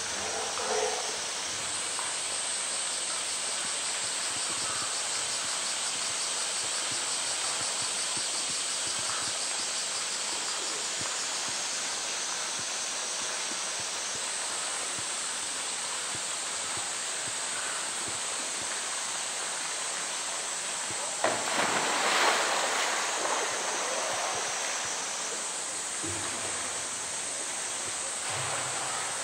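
Steady rush of water pouring into a polar bear's pool. About two-thirds of the way through comes a sudden loud splash that dies away over a couple of seconds, as the polar bear goes into the water.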